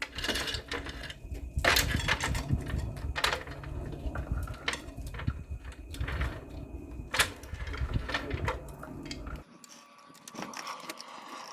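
Scattered knocks, clicks and clanks of hands-on work on a ladder and hoist frame, irregular and unevenly loud, over a low rumble that stops abruptly about nine seconds in.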